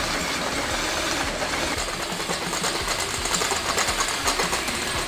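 Electric drill running steadily under load, boring holes through metal for the gas tank mounts.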